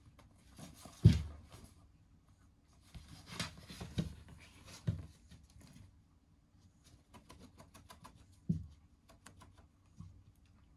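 Two cats playing with a stick toy on a hard floor: a sharp thump about a second in, rustling scuffles in the middle, then a run of light ticks and another thump.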